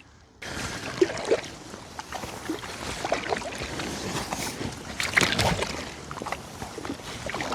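Kayak paddle strokes: water splashing off the blades and sloshing against the hull, with a louder splash about five seconds in.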